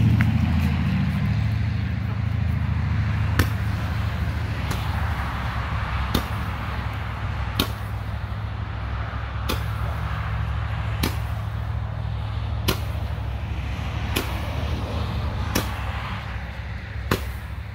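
A firework shooting single coloured stars one at a time, each with a sharp pop, about ten in all at roughly one-and-a-half-second intervals. Under the pops runs a steady low rumble that is loudest at the start.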